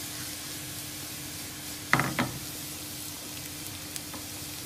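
Minced garlic and chili frying gently in oil, a steady soft sizzle with fine popping as the garlic starts to cook over a lowered flame. About two seconds in, two quick knocks.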